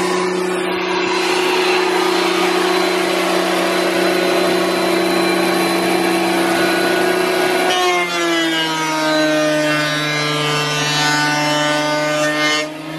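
Benchtop thickness planer running while a wooden board is fed through it: a steady motor hum under a dense rushing hiss from the cutter. About eight seconds in the hiss eases and the motor's pitch drops a little.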